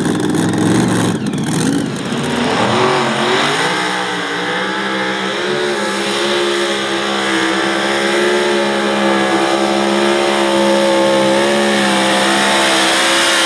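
Mini modified pulling tractor's engine: it revs up over the first few seconds, then holds at high, nearly steady revs with a slight waver in pitch.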